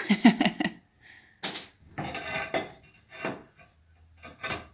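Hard objects clattering and knocking together: a quick flurry of clinks at the start, then several separate knocks.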